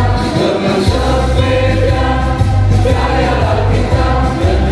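A group of men singing a song together over amplified backing music with a heavy bass line.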